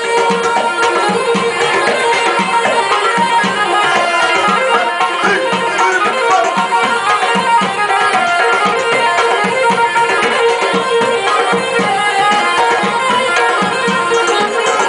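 Loud Middle Eastern dance music with a steady, driving hand-drum beat under a sustained melodic line.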